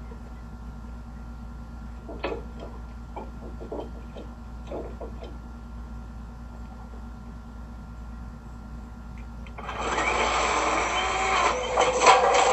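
Faint clicks and knocks over a low hum, then about ten seconds in a chainsaw suddenly starts running loud and rough, its pitch wavering.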